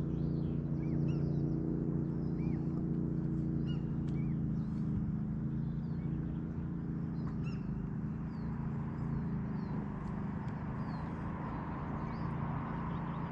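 A steady, low engine hum, with small birds chirping over it.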